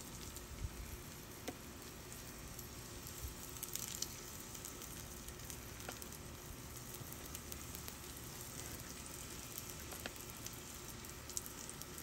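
Oil faintly sizzling on a hot Blackstone flat-top griddle as shrimp gyoza are set down in it one by one, with a few small scattered pops.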